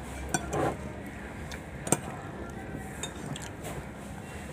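Tableware clinking while people eat: a few sharp separate clicks of cutlery or fingers against plates, the loudest about two seconds in.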